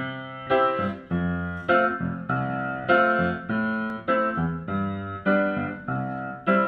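Keyboard music: a run of sustained piano-like chords, each struck sharply and then fading, roughly one every second.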